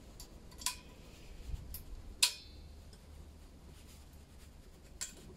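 Steel exhaust springs being stretched and hooked onto a scooter exhaust manifold with a spring-hook tool: a few light metallic clicks, the loudest a little over two seconds in with a brief ring.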